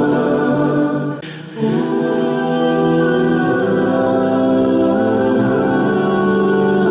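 Background music of wordless choir-like voices holding long, sustained chords, with a short dip in loudness a little over a second in.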